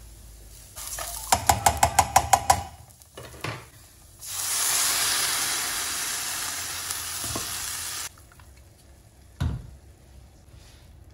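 A spoon stirs toasting rice and diced vegetables in a pot, clicking against it in a quick run of about ten strokes. Then blended liquid is poured from a blender jar onto the hot rice and sizzles with a loud hiss for about four seconds before cutting off. A short thump follows near the end.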